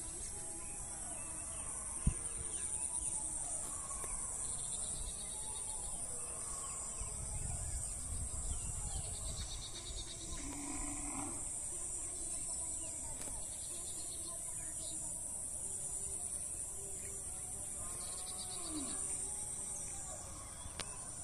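Insects droning steadily at a high pitch, with a single sharp click about two seconds in.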